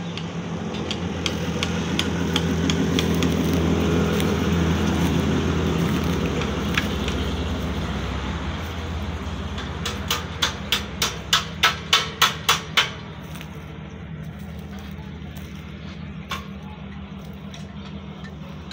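An engine running steadily, with a quick run of about ten hammer blows, roughly four a second and growing louder, about two-thirds of the way through. Lighter taps come before it, and one single knock comes later.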